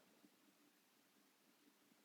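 Near silence: a faint steady hiss in the pause between snores.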